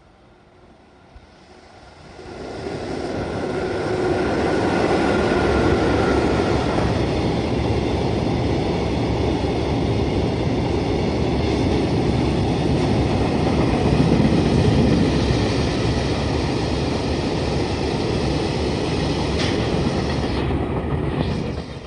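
An EF66-100 series electric locomotive hauling a train of oil tank wagons passes close by. The sound rises about two seconds in, with a high steady whine over the first few seconds. Then comes a long steady rumble and clatter of wagon wheels on the rails, which falls away near the end.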